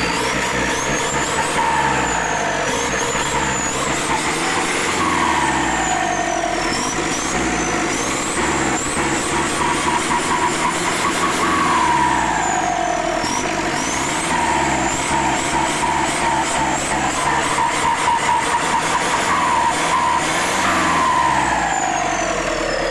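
Isuzu 4HF1 four-cylinder diesel fitted with an aftermarket turbo, revved up and down repeatedly. A high turbo whistle rises and falls with the revs, and a falling whoosh follows each time the revs drop, three times.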